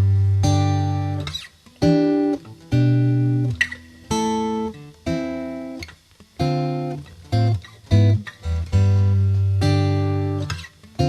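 Background music: plucked guitar notes and strums in a rhythmic pattern, each note starting sharply and dying away.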